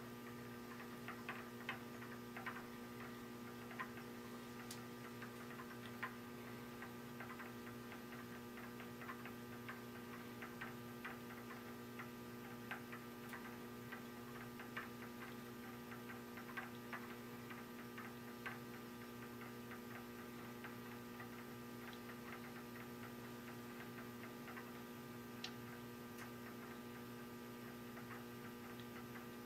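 Faint steady electrical hum in a machine shop, with scattered light metallic clicks as a tool in the milling machine's chuck is turned slowly by hand.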